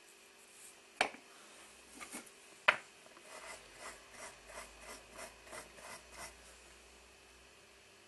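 Two sharp clicks, then a run of about nine quick rubbing strokes, roughly three a second.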